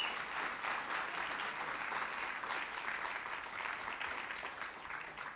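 Congregation applauding, a steady patter of many hands clapping that dies away near the end.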